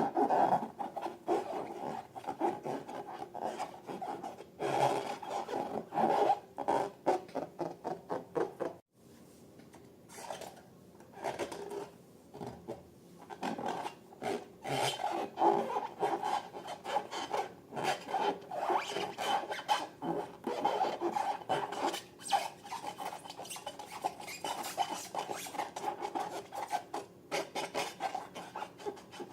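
Slime being squished and mixed, a rapid run of short sticky crackles that breaks off suddenly about nine seconds in and then resumes.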